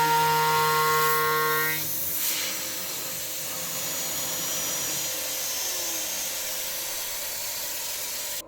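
DIY CNC router milling steel with a 3-flute 8 mm end mill: a steady pitched cutting whine that stops about two seconds in. A steady hiss of the machine running follows and cuts off suddenly near the end.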